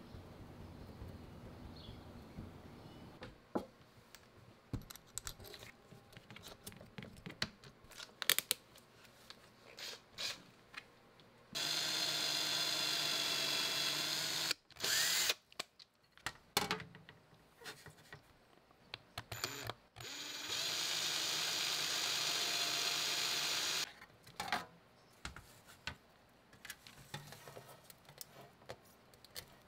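Electric drill boring holes through a clear plastic lid. The drill runs at a steady pitch twice, for about three to four seconds each time, with clicks and taps of handling in between.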